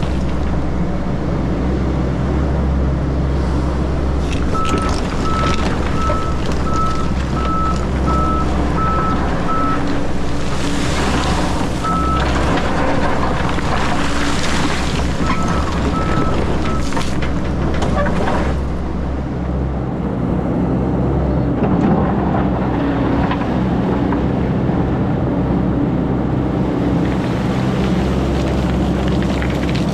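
XCMG 180 excavator's diesel engine running steadily under working load, with bursts of rougher scraping and hydraulic noise as it works the fill. A short high beep repeats about twice a second for a few seconds, then again briefly later.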